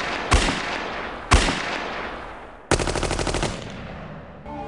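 Gunfire: two single shots with echoing tails about a second apart, then a short rapid burst of automatic fire lasting under a second.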